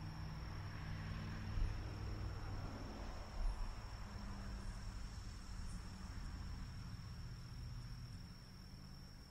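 Crickets trilling in one steady, unbroken high note over a low hum, with two soft low thumps about one and a half and three and a half seconds in.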